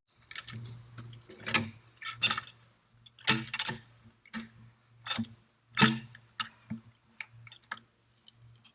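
A series of irregular sharp clicks and knocks, roughly one or two a second, over a faint steady low hum.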